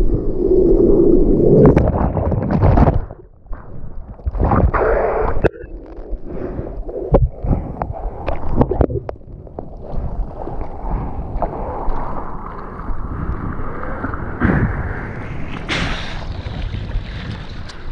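Whitewater churning and splashing around a surfboard, with arm-paddling strokes through the water and wind buffeting the microphone. The churning is loudest for the first three seconds, drops off sharply, then builds again toward the end.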